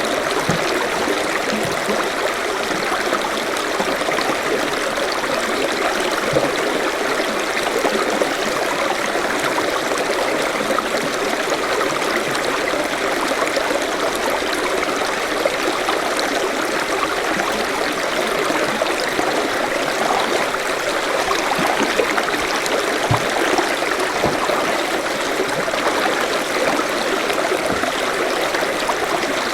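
Forest stream flowing over rocks: a steady babble and splash of running water with no pauses.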